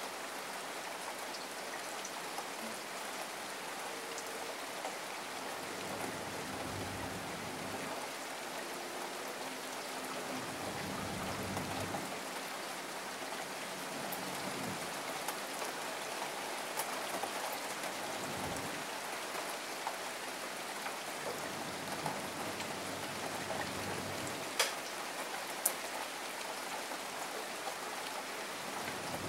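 Steady rain falling, an even patter of drops, with two sharp ticks close together near the end.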